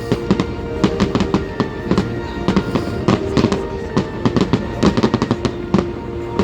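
Display fireworks going off in quick succession, many sharp bangs and cracks a second, with music playing underneath.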